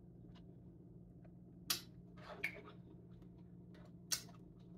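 Quiet eating sounds from spooning up a fruit smoothie bowl: a few short, sharp noises, about a second and a half in, twice around two and a half seconds, and once near the end, over a low steady hum.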